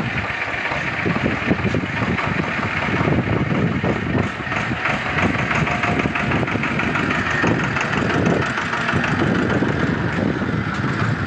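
Diesel tractor engine running as the tractor drives off at low speed pulling a loaded trailer.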